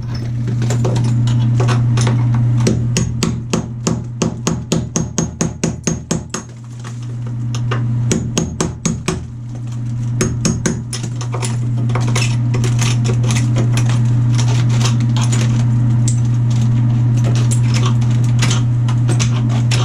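Rapid hammer blows knocking out wall tile and its mortar bed, about two or three strikes a second, then more scattered knocks, over a steady low hum.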